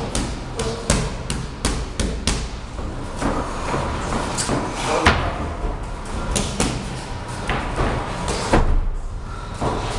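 Gloved punches and kicks landing on Thai pads and a focus mitt: a run of sharp slaps and thuds, several in quick succession in the first couple of seconds, then spaced single hits, the loudest about halfway through and again near the end.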